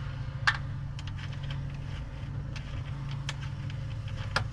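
A few sharp metallic clicks as the terminal bolt on a boat battery's post is unscrewed and the cable lugs are handled. A steady low hum runs underneath.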